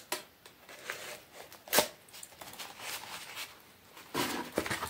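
Rolled corrugated cardboard being handled and opened: scattered light clicks and rustles, one sharp tap a little under two seconds in, then a louder scraping rustle near the end as the cardboard is unrolled.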